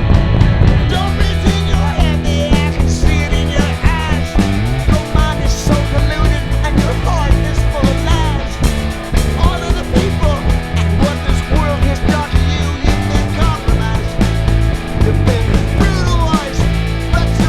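Rock band playing an instrumental break: a lead line of bending, wavering notes over steady bass and drums.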